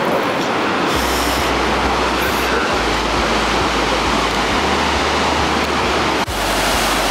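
Steady rush of water from Niagara's Horseshoe Falls, a dense unbroken noise, with wind buffeting the microphone in low rumbles that come and go from about a second in.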